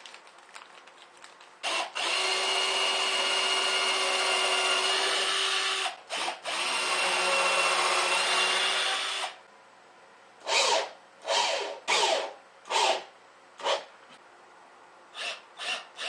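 Cordless drill driving 3/4-inch wood screws into plywood, securing the solar collector's inner board to its backboard. It runs steadily for about four seconds, briefly stops, and runs again for about two and a half seconds, then gives a string of about seven short runs.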